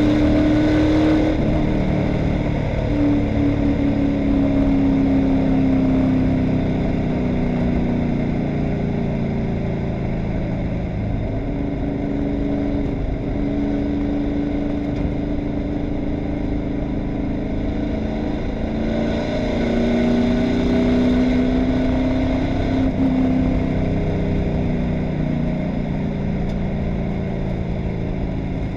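Stock car's V8 engine running at speed, heard from inside the cockpit. Its pitch falls over the first several seconds as the driver eases off for a turn, rises again about two-thirds of the way through under acceleration, then drops back.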